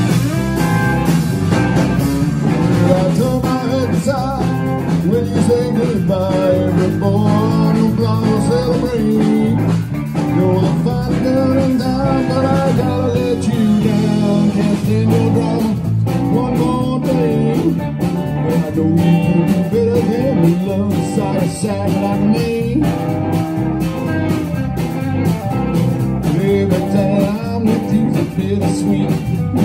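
A live blues band playing, with electric guitars over bass guitar and a drum kit.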